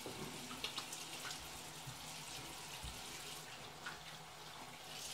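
Water running from a tap into a sink, steady, with a few small splashes as hands are rinsed under it.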